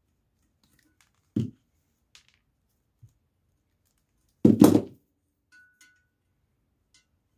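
Hand-tool handling at an electric motor's terminal box, side cutters and wires. There is a sharp snap about a second and a half in, a louder cluster of two or three knocks about four and a half seconds in, and a few faint clicks between them.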